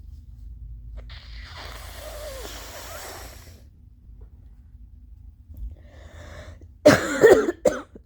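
A person blowing their nose hard for about two and a half seconds, then a little later coughing loudly twice, wet and phlegmy allergy coughs, the first the longer and louder.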